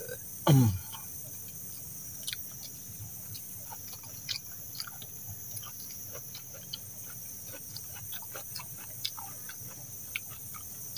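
A person eating: scattered small clicks and smacks of chewing and a spoon, after a short falling vocal 'mmm' about half a second in, which is the loudest sound. Steady cricket chirring runs underneath.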